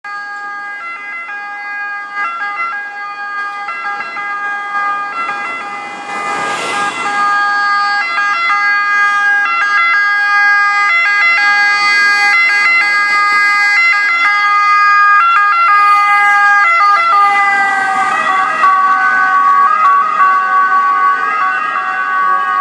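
Italian ambulance's two-tone siren alternating steadily between two pitches, getting louder as the ambulance approaches, with a slight drop in pitch about eighteen seconds in.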